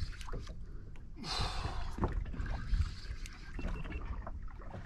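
Low wind and boat rumble with a person's breathy exhale lasting about a second, starting a little over a second in, and a few small scattered clicks.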